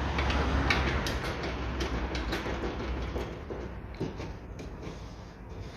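Metal parts of a car door's window regulator rattling and clicking as they are handled and positioned inside the door, over a low steady hum. The sound fades gradually.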